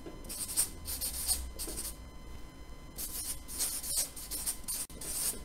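Marker pen writing on flip-chart paper: a series of short strokes in two runs, with a pause of about a second between them.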